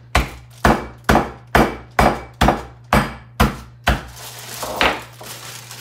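Cone of piloncillo (Mexican raw cane sugar) being pounded to break it into pieces: sharp, evenly spaced blows about two a second, nine of them, stopping about four seconds in, followed by a few softer knocks.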